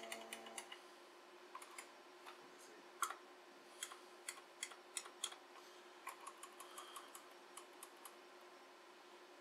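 Individual keypresses on an IBM Model M buckling-spring keyboard: scattered sharp clicks, one or two at a time with pauses between, as keys are pressed to move through a BIOS setup menu. A faint steady hum runs underneath.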